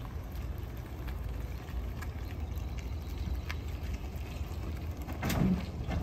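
Low, steady rumble of a pickup truck idling as it reverses a boat trailer down a launch ramp, with a brief louder rush about five seconds in.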